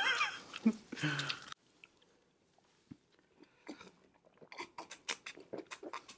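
Close-miked eating and drinking mouth sounds: after a brief contented 'mmm' hum at the start and a short lull, a run of small wet clicks and smacks of chewing and sipping from mugs.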